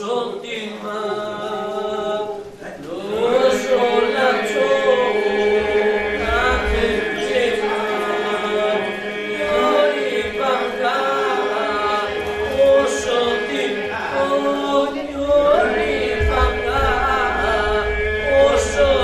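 A small group of young male voices singing an Albanian polyphonic folk song, with a steady drone held under the lead voices.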